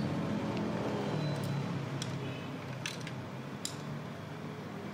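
A few small, sharp plastic clicks as a paper feed roller is worked off its shaft in a Ricoh MP 5001 photocopier feed unit by hand, over a steady low background hum.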